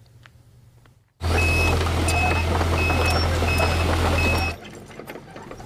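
Tracked excavator running, with its travel alarm beeping five times about two-thirds of a second apart over a low engine hum. It starts abruptly about a second in and falls away about a second before the end, leaving a quieter steady background noise.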